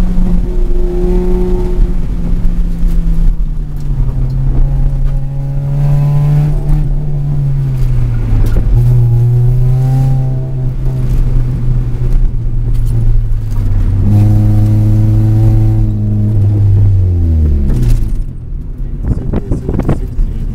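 Car engine heard from inside the cabin, pulling hard through an autocross course, its pitch stepping and sliding up and down with throttle and gear changes. About seventeen seconds in the engine note falls away steeply as the car slows at the end of the run.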